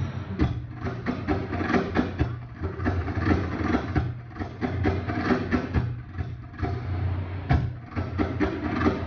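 Belly dance music with a steady, driving drum beat, heard loud and somewhat muffled through the room.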